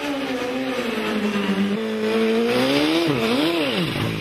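Motorcycle doing a burnout: the engine held at high revs while the rear tyre spins and squeals, the revs swinging up and down twice about three seconds in, then falling away near the end.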